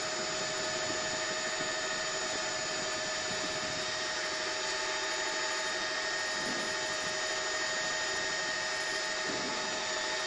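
News helicopter's turbine engine and rotor noise: a steady drone with several high, unchanging whining tones.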